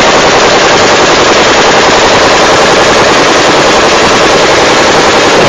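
A single long, unbroken burst of fully automatic gunfire, several seconds of continuous rapid shots at near full-scale loudness, stopping abruptly at the end.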